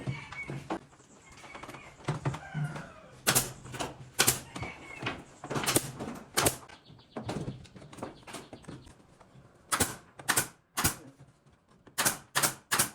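Irregular sharp knocks and clacks, about a dozen, some loud, from work on wooden ceiling boards.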